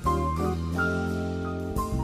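Background music: an instrumental track with keyboard chords and a drum kit, the chord changing about three quarters of a second in.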